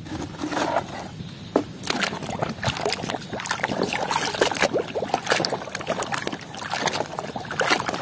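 A plastic toy elephant being swished and sloshed through a tub of muddy water, with a run of irregular splashes and knocks of plastic.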